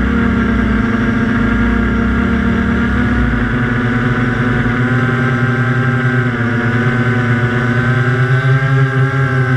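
Quadcopter's electric motors and propellers heard through its onboard camera: a steady multi-tone hum whose pitch starts shifting up and down about five seconds in as the throttle changes.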